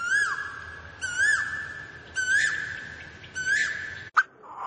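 Asian koel calling: a whistled note repeated about once a second, four times, cut off by a sharp click near the end.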